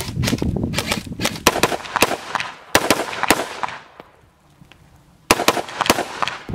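AR-15-style rifle firing live rounds in quick succession, about three shots a second, each with a ringing echo. The firing stops for about a second just past the middle, then resumes with another rapid string.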